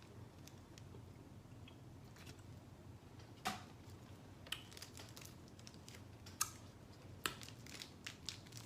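Quiet chewing of a piece of fudge candy, with scattered sharp clicks over low room tone, the loudest about three and a half seconds in.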